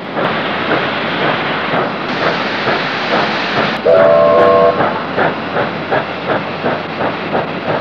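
NSWGR 38 class Pacific steam locomotive 3810 working slowly past. Its exhaust beats about three times a second over a steady hiss of steam. About four seconds in, the whistle gives a short blast of several tones at once.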